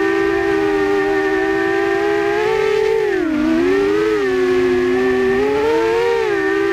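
Quadcopter's electric motors and propellers whining as it hovers, heard from its onboard camera: several close tones that dip in pitch about three seconds in, then rise again around six seconds as the motors change speed.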